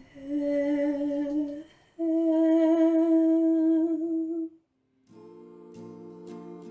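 A woman's voice humming or singing two long, held, wavering notes without words, the second pitched higher. After a short pause about five seconds in, an acoustic guitar starts strumming.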